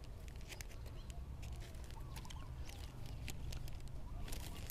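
Thin 6x9 plastic bag crinkling in many short, soft, irregular ticks as it is slipped over the top of a fresh graft.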